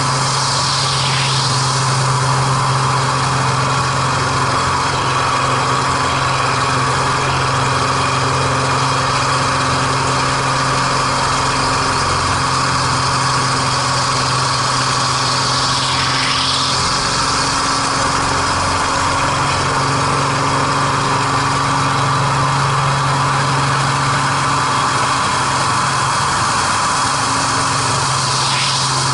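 MX2 aerobatic plane's piston engine and propeller running steadily, heard from an onboard camera; the engine note weakens for several seconds midway and then comes back. Three brief high sounds fall in pitch, near the start, in the middle and near the end.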